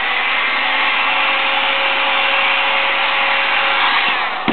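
Handheld heat gun blowing steadily, a loud rushing fan noise with a faint steady hum. It eases off and stops with a click near the end.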